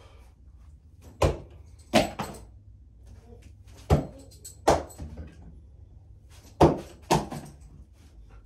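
Bo-shuriken throwing spikes striking a tatami target board: six sharp knocks, coming in three pairs about half a second to three-quarters of a second apart.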